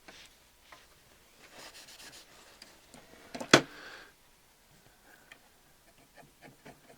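Cotton swabs rubbing and scraping as old oil is swabbed out of a turntable part, with small handling clicks and one sharp, loud click about halfway through.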